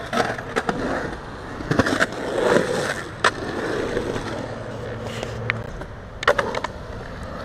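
Skateboard wheels rolling over a concrete skatepark bowl, a rough, steady rolling noise, with several sharp clacks from the board and trucks spread through it.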